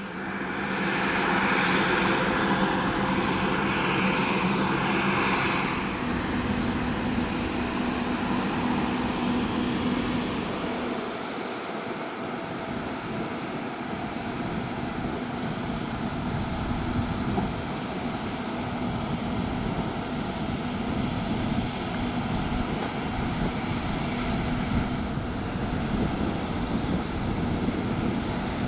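Steady whine and rumble of jet aircraft turbines running, fading in at the start, with the mix shifting about six seconds in.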